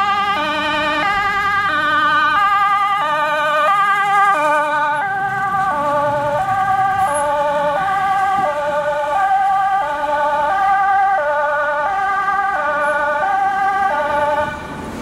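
Fire engine's two-tone emergency siren, switching between a high and a low tone about every three-quarters of a second, each tone wavering quickly. The sound dulls and drops slightly in pitch about five seconds in as the truck passes, and it falls off in loudness near the end as the truck pulls away.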